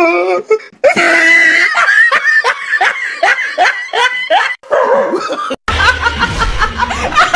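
Laughter in quick, repeated short bursts. About three-quarters of the way through, a woman's laugh takes over with a low bass underneath.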